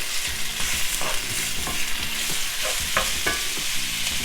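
Cajun-seasoned chicken pieces sizzling in hot olive oil in a frying pan, with a utensil scraping and knocking against the pan several times as the pieces are pushed apart.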